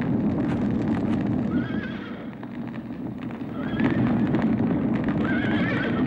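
Panicked horses whinnying, three calls about two seconds apart, over a dense low din and clattering hooves. The horses are frightened by a fire in their stable.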